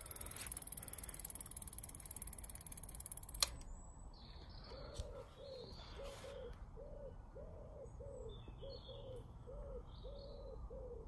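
A bicycle rear hub freewheels as the wheel spins, giving a fast, high ticking buzz that stops with a sharp click about three and a half seconds in. After that a pigeon coos repeatedly in short grouped notes, with a few small birds chirping.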